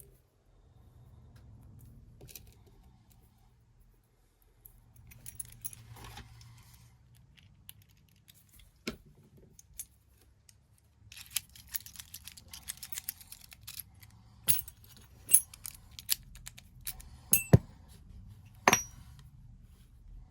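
Small metal lock parts and a key being handled while a rim cylinder is rekeyed: scattered light clicks, then a few seconds of rapid clicking and clinking, then several sharp metallic clicks near the end.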